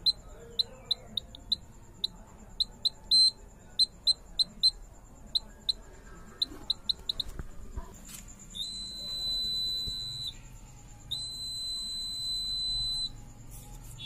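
Piezo buzzer of a homemade laser-and-LDR security alarm sounding each time the laser beam on the light sensor is broken: a run of short, irregular high-pitched beeps, then two long steady beeps of about two seconds each.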